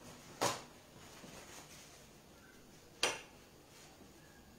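Two sharp kitchen knocks, about two and a half seconds apart, over quiet room background.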